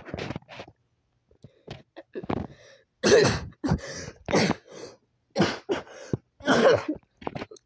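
A person coughing and clearing their throat in a string of short, uneven bursts, louder from about three seconds in.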